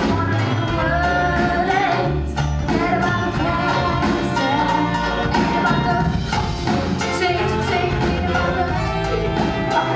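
Live reggae band playing, a woman singing lead over drums and bass guitar, with trumpet and saxophone.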